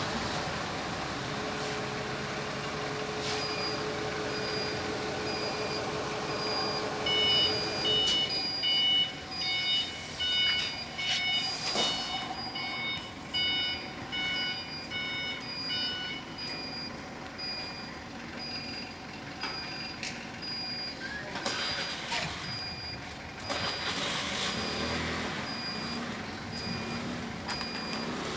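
Forklift engines running, with a forklift's warning beeper sounding in short, evenly spaced beeps. About seven seconds in a second, louder beeper at several pitches joins, and it stops about sixteen seconds in.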